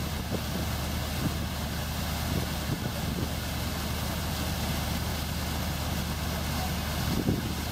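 Pumped herring and water gushing steadily out of a discharge pipe into a fishing boat's hold, over a steady low drone of the boat's engine and fish pump. A few knocks near the end.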